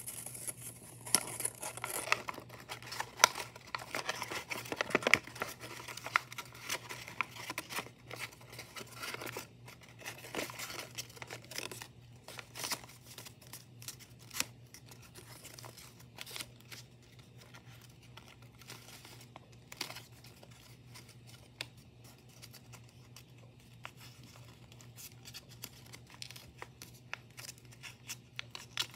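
Paper crinkling and rustling as it is folded and creased by hand: a run of irregular small crackles, busiest in the first dozen seconds and sparser after that.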